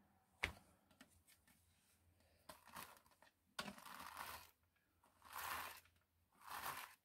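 A hairbrush drawn through a doll's long synthetic mane to work out tangles: four soft rasping strokes about a second apart, after a single click near the start.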